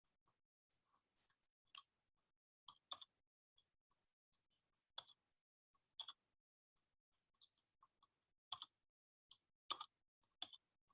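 Faint, irregular clicking at a computer: scattered key and mouse clicks, about one or two a second, some in quick pairs.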